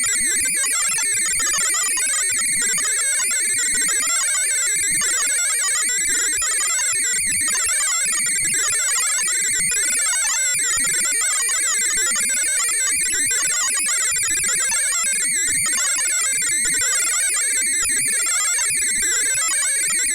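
Sci-fi spaceship computer sound effect: many overlapping electronic beeps and chirps in a dense, steady wash, with a wavering warble running under them.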